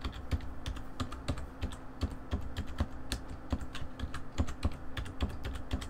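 Typing on a computer keyboard: a quick, uneven run of keystroke clicks.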